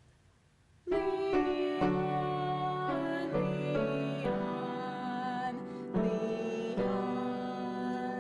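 A keyboard accompaniment begins about a second in: a hymn played in held chords that change every second or so.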